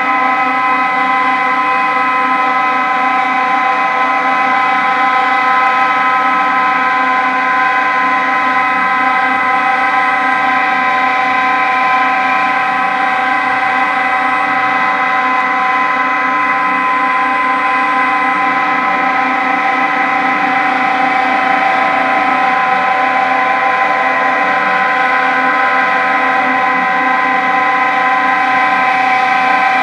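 A steady, unchanging drone of several held tones sounding together, with no rhythm or breaks.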